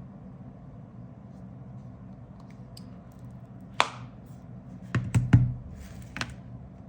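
Handling noise of taps and knocks: one sharp click a little over halfway through, then a quick run of three heavier knocks and a lighter click near the end, over a low steady hum.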